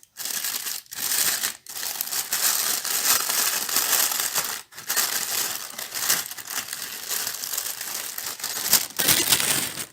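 Plastic packaging crinkling and rustling as a new camera is unwrapped by hand, with a few brief breaks.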